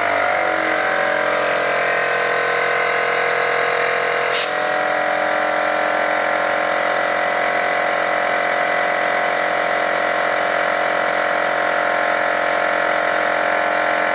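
A small motor running steadily with an even, unchanging buzzing hum, and a single brief click about four seconds in.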